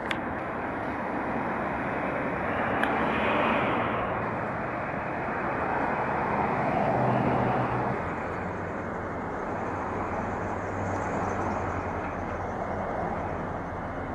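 Street traffic noise: passing vehicles swell and fade, about three and again about seven seconds in, over a steady hiss.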